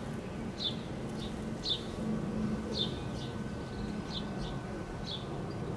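European robin fledglings calling from cover: short, thin, high calls repeated about twice a second, over a low steady rumble.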